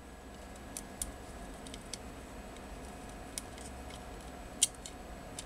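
Faint, light clicks and taps of small hardware being handled as a Raspberry Pi board is fitted onto the display's standoffs and small screws are readied, the clearest click near the end, over a low steady hum.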